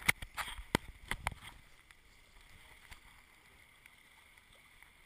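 Water rushing past a sailing skiff's hull, with a quick cluster of sharp knocks and slaps in the first second and a half, then a steady faint wash of water and wind.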